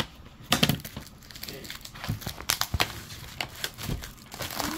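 Plastic shrink wrap crinkling as a sealed, shrink-wrapped cardboard display box of trading-card tins is handled, with irregular small clicks and taps.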